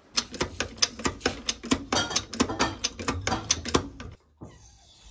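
Rapid ratchet-like mechanical clicking, about five clicks a second, over a low hum; it stops suddenly about four seconds in, leaving only faint handling noise.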